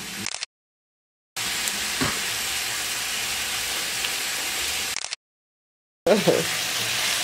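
Chicken, bell pepper and onion sizzling in butter in a frying pan, a steady sizzle. It cuts to dead silence twice, about half a second in and again around five seconds, then comes back as the pan is stirred with a wooden spoon.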